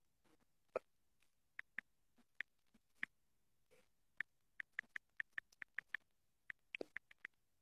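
A series of faint, short clicks over near silence, scattered at first, then a quicker run of about five a second from about four seconds in until just past seven seconds.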